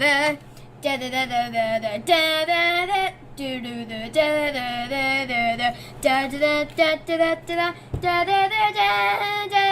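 A high voice singing a string of held notes at changing pitches, each lasting about half a second to a second, with slight wobbles and glides between them, over a steady low hum. A short click about eight seconds in.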